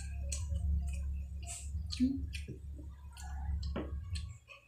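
People eating instant noodles: wet slurping and chewing with many small, irregular clicks of forks against bowls, over a steady low hum.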